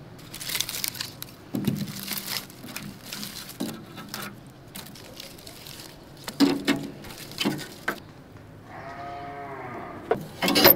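Dry split wood and kindling knocking and clattering as pieces are dropped and laid into a rusty metal drum stove, in scattered sharp knocks. About eight and a half seconds in, a farm animal gives one long call that rises and falls.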